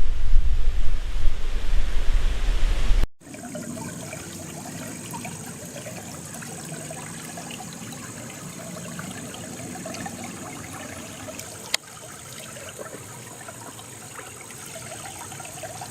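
Wind buffeting the microphone with a loud low rumble, cut off suddenly about three seconds in; then the steady rush of a creek running high with storm rain. A single sharp click near the twelve-second mark.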